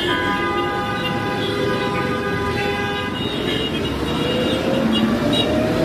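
A vehicle horn sounding one long steady blast of about three seconds, then stopping, over the running noise of street traffic. In the second half a vehicle's engine note rises slowly as it speeds up.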